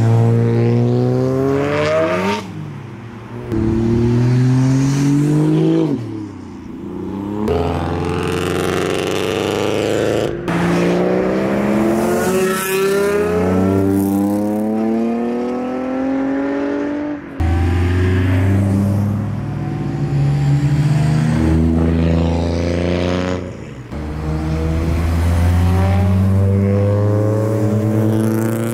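Modified tuner cars accelerating hard away one after another, the engine note climbing in pitch as each revs up, with sudden breaks at the gear changes several times through.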